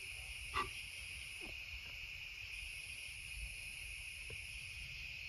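Crickets and other insects trilling in a steady, high-pitched chorus, with one brief, sharper sound about half a second in.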